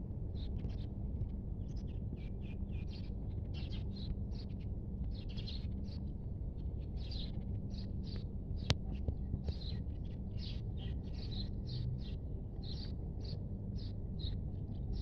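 Small birds chirping over and over, several short high chirps a second, above a steady low rumble, with one sharp click about nine seconds in.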